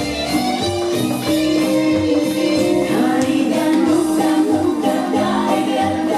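Song playing with singing over instruments and a steady beat.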